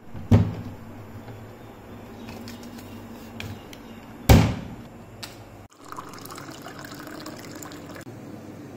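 Water running from a tap into a drinking glass, filling it, through the second half. Before that, two sharp knocks, the first as a wooden cabinet door is pulled open.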